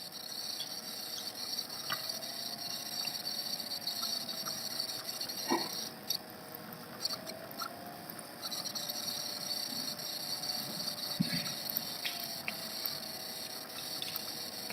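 Low steady microphone hiss with a faint wavering hum and a few soft, scattered clicks.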